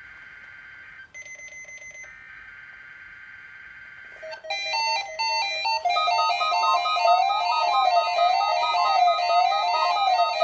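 Emergency Alert System SAME header: screeching digital data bursts, broken about a second in by a short buzzing tone. About four seconds in, louder electronic keyboard music starts, with a melody line over a figure that runs repeatedly up and down.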